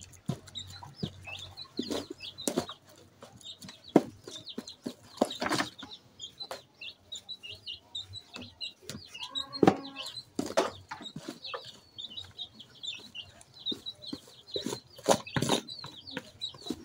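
Wooden stick knocking and scraping at irregular intervals in a plastic basin as maize flour is worked into mashed ripe bananas, with chickens clucking and small birds chirping around.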